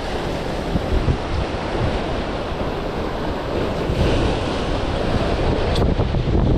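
Waves washing and breaking against the jetty rocks, with wind buffeting the microphone.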